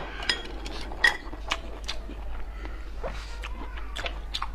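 Eating sounds from a bowl of noodle soup: scattered light clicks and taps of utensils against the bowl, with soft mouth noises between them.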